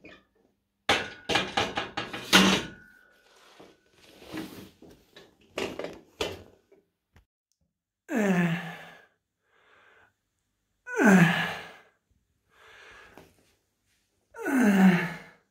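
Barbell and weight plates clanking and rattling for a few seconds, some knocks ringing on. Then three strained groans of effort about three seconds apart, each falling steeply in pitch, from a man doing heavy one-arm preacher curls.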